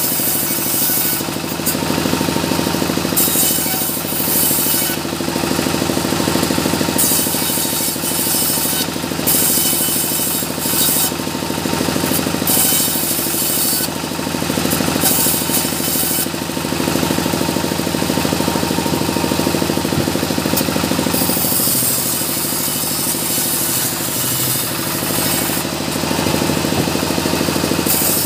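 Engine-driven circular saw bench ripping small mahogany logs into boards and battens. The engine runs steadily, and the blade's hiss rises each time it bites into the wood. The cuts come one after another with short gaps, and a longer cut runs through most of the last third.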